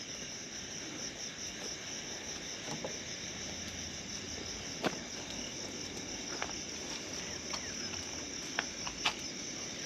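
Crickets trilling steadily at a high pitch, with a few short sharp clicks about halfway through and near the end.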